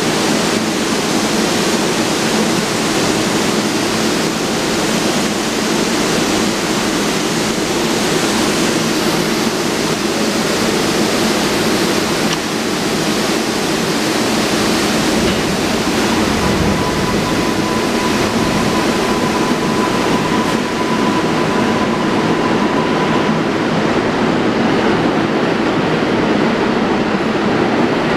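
R188 subway train (a converted R142A) standing at an underground platform with its equipment running as a steady noise. In the second half a low rumble builds as the train starts to move off, and a steady high whine sounds for several seconds past the middle.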